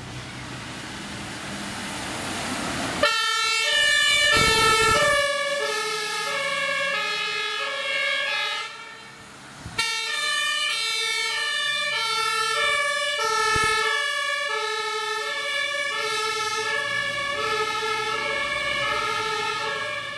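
Vehicle engine and road noise, then about three seconds in the Mercedes-Benz Sprinter ambulance's two-tone siren switches on, stepping back and forth between two pitches. It drops away briefly near the middle and comes back with the same two-note pattern.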